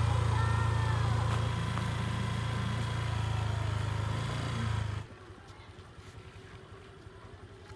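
Motor scooter engine running at low road speed with a steady low rumble, which stops suddenly about five seconds in, leaving it much quieter.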